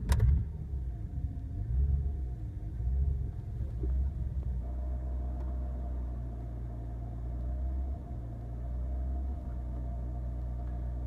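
BMW E46 325i 2.5-litre straight-six engine running at a rough, uneven idle. Its speed wavers audibly for the first few seconds, then holds steadier. The fluctuating idle comes from a faulty throttle body and broken throttle and accelerator-pedal cables.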